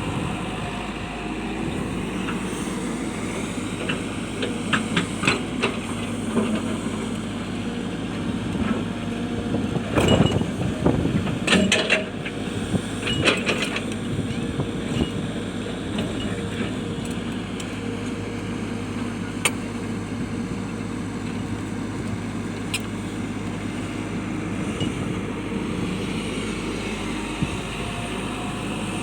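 Hitachi excavator's diesel engine running steadily under work, with irregular hard clanks and knocks of rock against the steel bucket, bunched together in two spells and then a few single ones.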